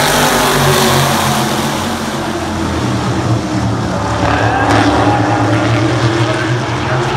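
A pack of 350 supermodified race cars lapping an oval, their small-block V8 engines making a loud, steady drone. Part of the pitch briefly rises about halfway through as cars accelerate.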